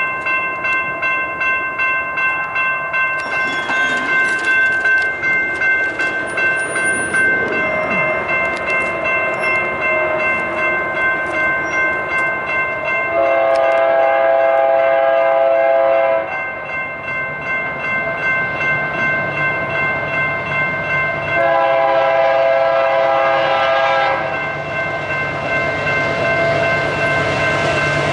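Railroad crossing warning bell ringing steadily, while an approaching freight locomotive's air horn sounds two long chord blasts, one about halfway through and one later on. The train's rumble grows louder near the end.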